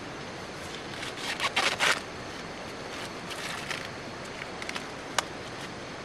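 Hands handling something dry and rustly: a quick run of rustling, scraping strokes about one to two seconds in, a softer run a little later, and one sharp click near the end, over a steady background hiss.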